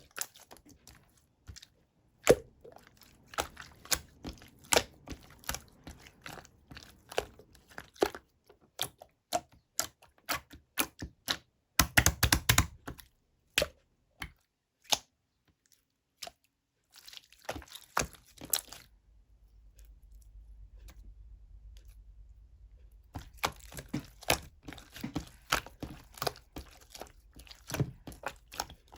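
Clear pink jelly-textured slime being pressed, stretched and folded by hand, giving a run of sharp sticky clicks and pops. A dense burst of crackling comes about twelve seconds in, and a lull in the middle holds only a faint low hum.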